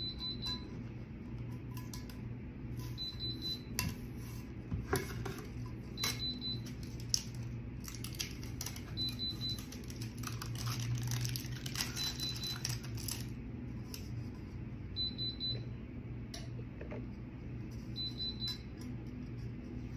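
Tape and plastic wrapping being peeled and pulled off a freshly heat-pressed sublimation tumbler: scattered crinkling, tearing and clicking. A short high beep repeats about every three seconds over a steady low hum.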